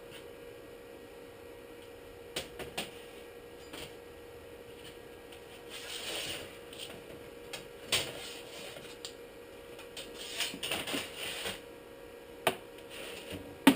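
Sheet steel being pulled out and handled, with scattered knocks and clicks, two stretches of scraping and a sharp knock at the very end. A faint steady hum runs underneath.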